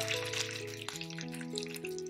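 Background music of held notes that change every half second or so, over chicken wings frying in oil in a pan with a light crackling sizzle.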